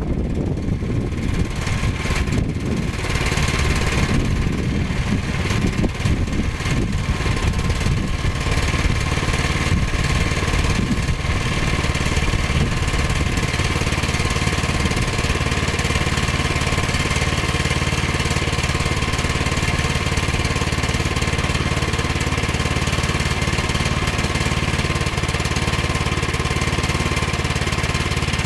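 Woodland Mills HM122 portable sawmill's gas engine running, uneven for the first several seconds and then holding a steady note.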